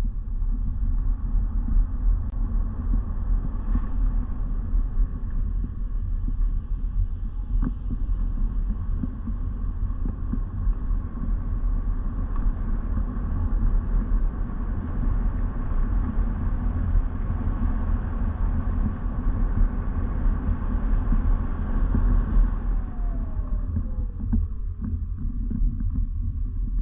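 Steady low rumble, like wind buffeting or road noise, with a faint high tone running through it and a faint falling whine near the end.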